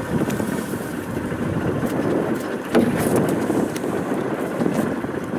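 Wind on the microphone and water lapping around a small open boat, with a sharp knock just before the middle as a long mussel-raking pole is worked over the side.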